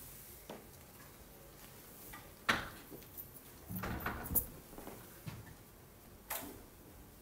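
A few scattered knocks and bumps as an acoustic guitar is lifted from its stand and handled. There is one sharp knock, then a cluster of heavier thuds, then a last knock near the end, with no playing.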